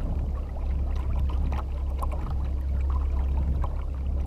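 Small waves lapping and splashing against the hull of a small round plastic boat, many little irregular slaps, over a steady low wind rumble on the microphone.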